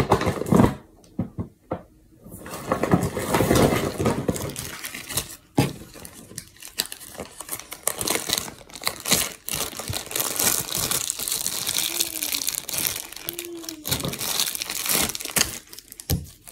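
Slime being squeezed and worked by hand, giving a steady crackling and squishing with many small pops, mixed with the rustle of the phone being handled.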